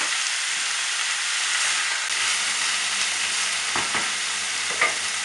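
Lamb pieces sizzling as they fry in hot oil with onion and spices, stirred in the pan. There are a couple of short knocks against the pan, the sharpest near the end.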